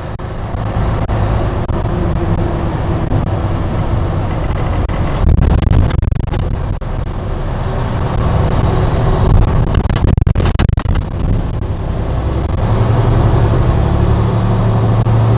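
Semi truck's diesel engine running while driving, heard with road noise inside the cab; the low engine hum grows louder about twelve seconds in. Brief clusters of clicks and knocks come around five and ten seconds in.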